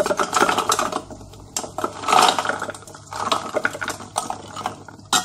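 Frozen cherries pushed by hand off a plate, clattering into a stainless steel food-processor mixing bowl. They land as quick runs of hard little clicks, in several bursts.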